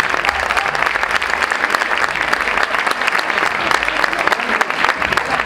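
Crowd applauding, steady dense clapping throughout.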